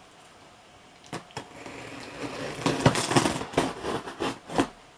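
Scissors cutting into the packing tape of a cardboard parcel: a couple of clicks, then a run of irregular crackling and scraping from about two seconds in.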